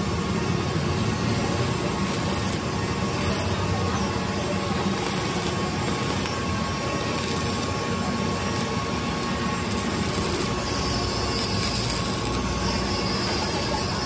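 Stick (coated-electrode) arc welding on thin sheet steel: the arc crackling and sizzling steadily as a hopper seam is welded.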